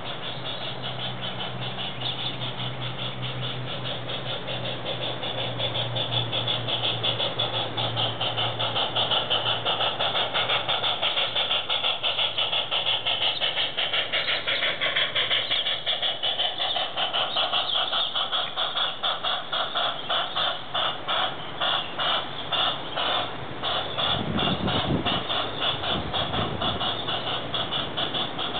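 Large-scale garden railway train: a modified Aristo-Craft 2-4-2T model locomotive and its works wagons running past on the track, with rapid regular clicking that grows louder as it comes near and pulses in the second half.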